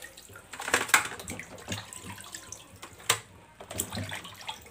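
Water splashing and sloshing as boiled pork knuckle pieces are rinsed by hand in a pot of water, with a few sharper splashes, the loudest about a second in and about three seconds in.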